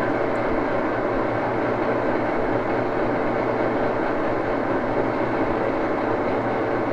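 Axelson engine lathe running steadily under power, its gears and drive giving an even hum and whir, with the spindle reversed through the reversing clutch to back a tap out of the threaded hole.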